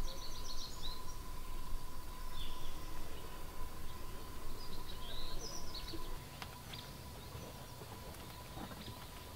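Small birds chirping in short, quick phrases, three bouts, over a low outdoor rumble that eases about six seconds in. A faint steady thin tone runs underneath.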